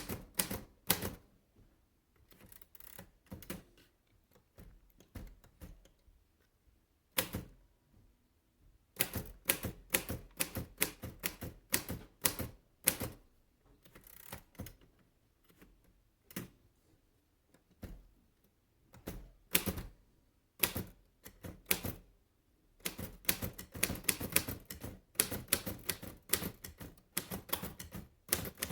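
Keys of a 1937 Royal De Luxe Model A portable typewriter being typed on: irregular bursts of sharp key strikes with short pauses between runs.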